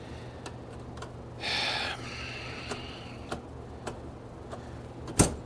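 Screwdriver working on the screws of a steel radio-equipment chassis: faint clicks about every half second, a short hiss about a second and a half in, and one sharp click near the end, over a steady low hum.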